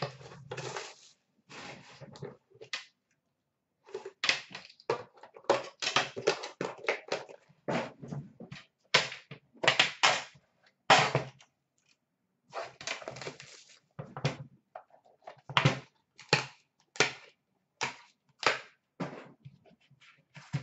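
Metal trading-card tin and its lid handled on a glass counter: irregular clanks, taps and scrapes as the lid comes off and the cardboard box inside is slid out.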